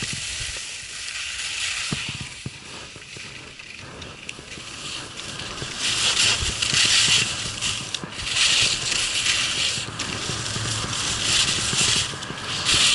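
Skis scraping and hissing over hard-packed snow. Quieter at first, then from about halfway in the scraping swells in loud surges every two to three seconds as the ski edges bite through the turns.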